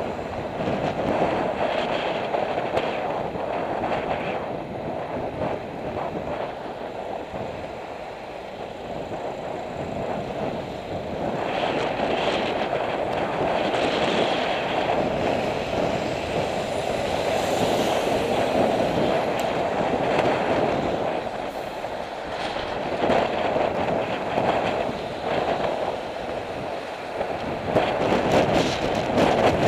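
Wind rushing over the microphone of a bicycle-mounted camera while riding in traffic, with road rumble and many small rattles and knocks. The noise swells and eases with no quiet gaps.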